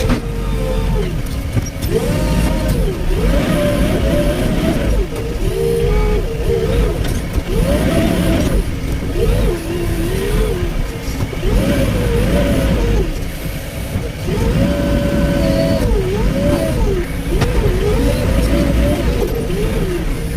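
Diesel engine of a demolition excavator working under load, its pitch repeatedly rising and dropping every second or two as the hydraulics are worked, over a low rumble.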